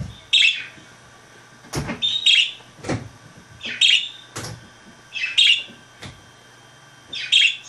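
Budgerigar giving short, single chirps about every second and a half, five in all, with four sharp clicks or taps falling between the chirps.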